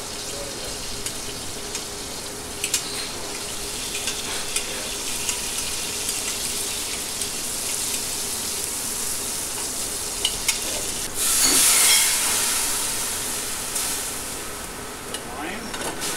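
Shrimp sizzling as they sear in a hot aluminium sauté pan over a gas burner, with a few light clicks of metal tongs against the pan. About eleven seconds in the sizzle flares up much louder for a couple of seconds, then dies back down.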